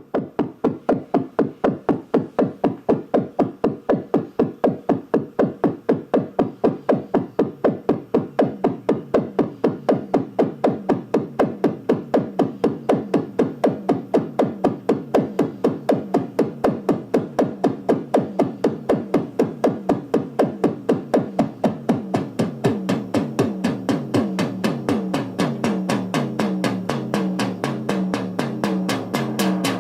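Moog analog-style synthesizers playing a sequenced pattern of short, percussive notes, about four a second. A stepping lower melodic line comes to the fore over the last third.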